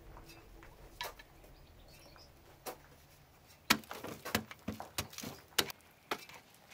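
A mattock chopping into a hard, dry clay wall, making sharp knocks. There are two single strikes, then a quick run of strikes from about halfway through.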